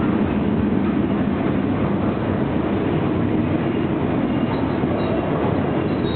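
Loaded freight cars of a stone train rolling past: a steady rumble of steel wheels on rail, with faint thin high squeals near the end.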